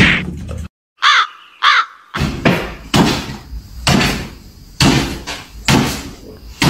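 Two short, high animal calls, each bending up and down in pitch. Then about six sharp, short sounds follow, a little under a second apart, in time with a small white dog hopping up and down on its hind legs on a wooden floor.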